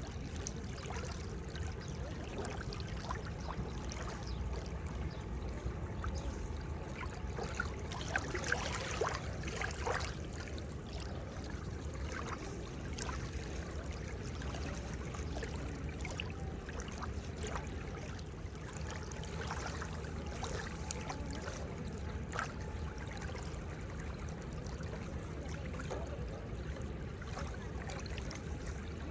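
Seawater lapping and splashing at the shore, a steady wash with many small trickles and splashes, swelling a little about eight to ten seconds in.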